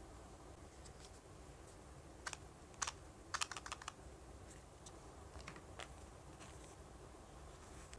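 Crisp ticks and crackles of paper stickers and memo paper being handled, with a quick run of clicks a few seconds in and a few fainter ones after.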